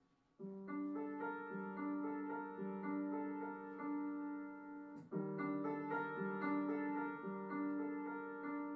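Solo piano playing slow, rolling broken chords. It begins about half a second in, and a new chord is struck just after five seconds.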